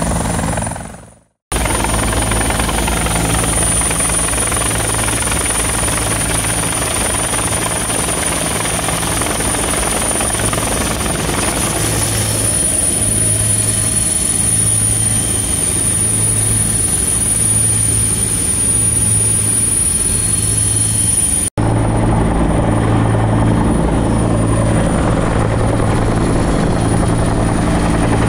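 Rescue helicopter's turbine engines and rotor heard from inside the cabin: a steady high turbine whine over a dense low rotor drone with a regular throb. The sound drops out briefly about a second in and cuts for an instant about 21 seconds in.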